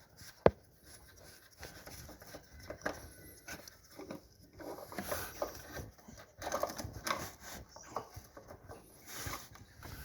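Oil filter housing cap on a 2.4L engine being unscrewed by hand: a sharp click about half a second in, then scattered light clicks and rubbing of the cap and hands on the housing.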